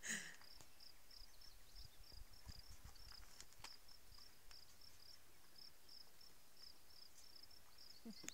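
Faint, high chirping of an insect, repeated evenly about three times a second, with a short rustle of handling noise at the start and a click at the very end.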